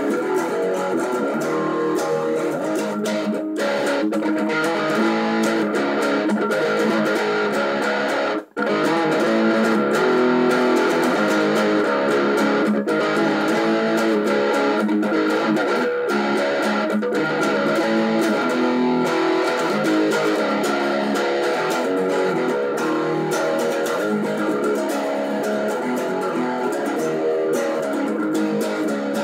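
Electric guitar, a Les Paul-style single-cut with humbuckers, played through distortion: strummed chords ringing on without a break, except for a momentary cut-out about eight and a half seconds in.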